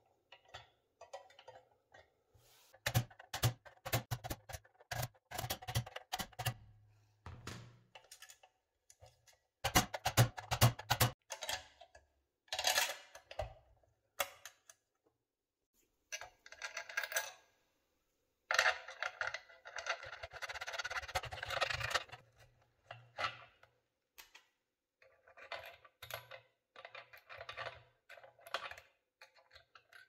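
Irregular clicks, taps and clinks of small hard parts being handled, with a few short stretches of rattling or scraping, the longest about three seconds.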